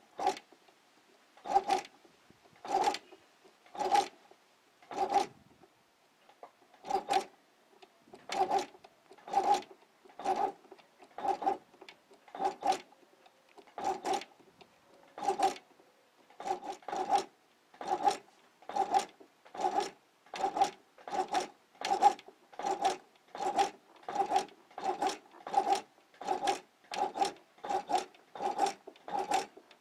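Singer Inspiration 4210 sewing machine, retrofitted with a heavy-duty DC motor, stitching one needle stroke at a time: about thirty short strokes, each a brief rasp with a motor whine, about one a second at first and quickening toward the end. The needle is following the foot pedal up and down in the machine's position-control mode rather than running continuously.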